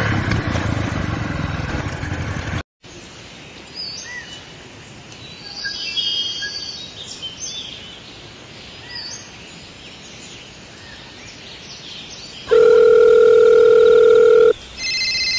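A loud machine-like hum stops abruptly a little under three seconds in, and faint bird chirps follow. About twelve and a half seconds in, a loud steady telephone tone sounds for two seconds, then a higher ringing tone starts near the end.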